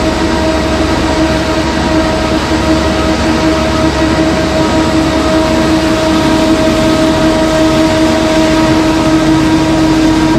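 LDPE film washing line running: a steady, loud mechanical din of electric motors and washing machinery, with a constant whine of several fixed tones over a rushing noise.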